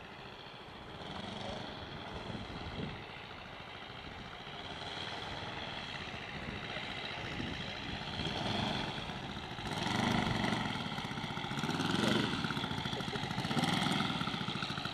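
Model aircraft's Valach 120 inline engine running in flight, its propeller turning, growing steadily louder as the plane comes in low toward the field.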